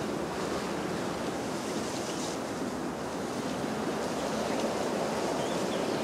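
Water rushing steadily, a continuous even wash of sound with no breaks.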